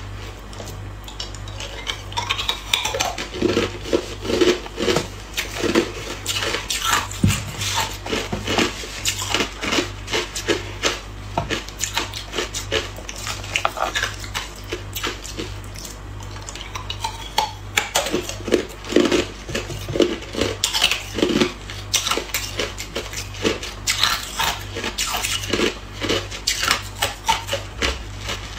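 Hard clear ice cubes crunched and chewed close to the microphone in many irregular, crackly bites, with cubes clinking against each other as they are picked from a heap in a freezer drawer. A steady low hum runs underneath.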